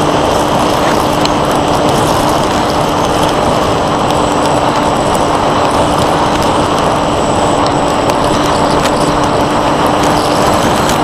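Onboard sound of a Bixler 1.1 FPV plane in flight: its Turnigy 2826-6 electric motor and 8x3.4 propeller run at a steady pitch under a loud, even rush of wind over the airframe.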